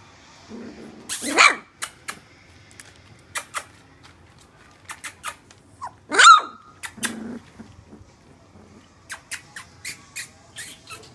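Three-week-old Welsh springer spaniel puppies giving two short, high puppy barks, one about a second in and another around six seconds in, with light clicks and taps between them.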